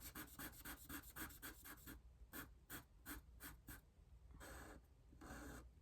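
Faint scratching of a felt-tip marker colouring in on paper: quick back-and-forth strokes at about six a second, then slower strokes, then two longer sweeps near the end.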